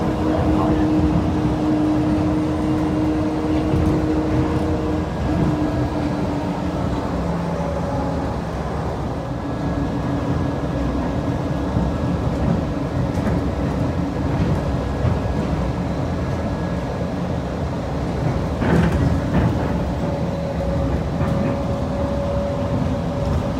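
Steady drone of an airport ramp, idling jet aircraft and ground equipment, with several steady whining tones that shift slowly in pitch. A short sharp noise comes near the end.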